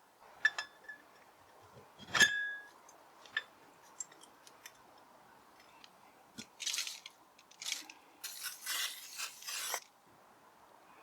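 Small metal clutch parts clinking and tapping a few times, the loudest clink about two seconds in with a brief ring, followed by stretches of scratchy rubbing noise near the end.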